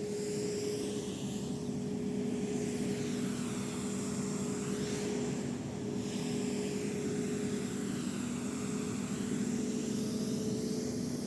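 Washing machine running, a steady motor hum with a whooshing, whirring noise over it that swells and fades slightly.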